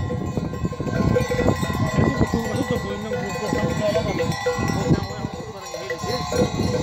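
Bells on a grazing flock of sheep clinking and ringing irregularly over a low rumble, with a sheep bleating now and then.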